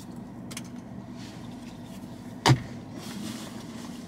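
Steady low hum of a car idling, heard from inside the cabin, with one sharp click about two and a half seconds in.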